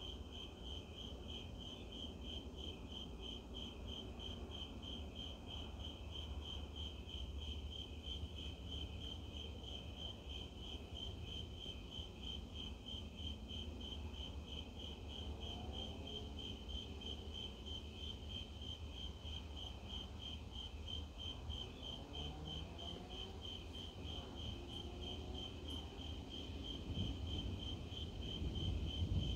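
Crickets chirping in a steady, even pulse. Under them runs a low rumble that grows louder near the end.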